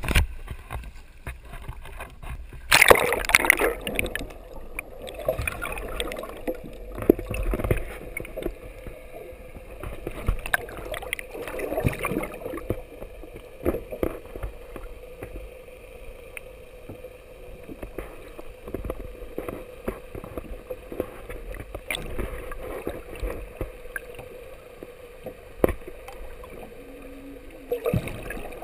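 Sea water heard through an underwater camera: a loud splash as it plunges in about three seconds in, then muffled gurgling and sloshing beside a boat's hull, with scattered knocks and a steady hum underneath.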